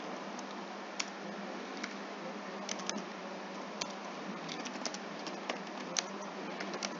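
Typing on a computer keyboard: sparse, irregular key clicks over a steady background hiss.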